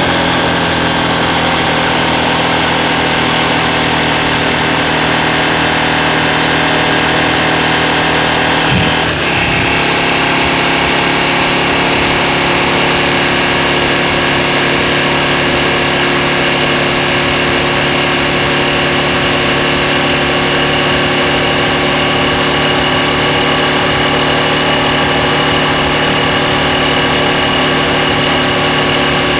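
KTM 790 Adventure motorcycle's parallel-twin engine and drivetrain running at a steady speed, with a brief break and shift in pitch about nine seconds in.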